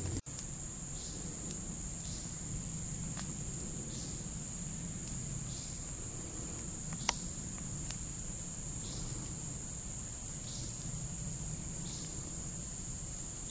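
Insects trilling steadily at a high pitch, with fainter short chirps repeating every second or so and a single sharp click about seven seconds in.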